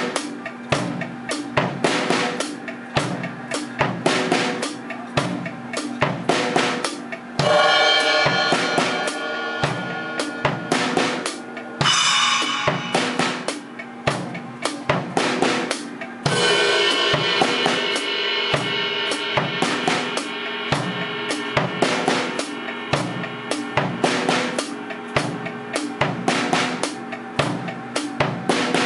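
Acoustic drum kit played in a steady groove, with bass drum and snare strokes. Crash cymbals come in about seven and a half seconds in, again around twelve seconds, and once more around sixteen seconds, where the crash or ride wash rings on for several seconds.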